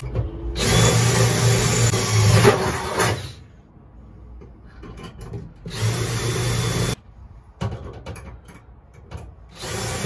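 Cordless drill boring rivet holes through aluminum angle on a truck bed wall. It runs in three bursts: about three seconds at the start, about a second around six seconds in, and another starting near the end.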